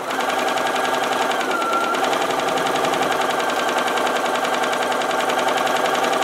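Bernina Activa 240 sewing machine running at speed with no fabric, the needle stitching up and down in a fast, even rhythm over a steady motor whine that dips briefly about a second and a half in. It is being run freshly oiled, to spread new oil through the hook race.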